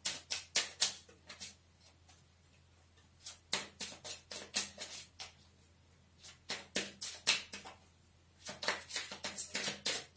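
Tarot cards being shuffled by hand: quick runs of crisp card snaps and slaps in four short bursts with quiet pauses between.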